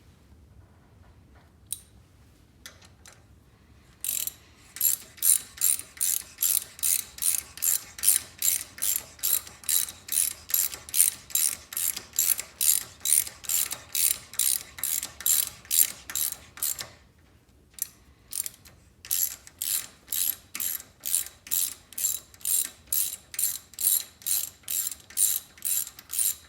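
Hand ratchet being swung back and forth to run a threaded fastener, its pawl clicking sharply about three times a second. It starts a few seconds in, stops briefly past the middle, then carries on.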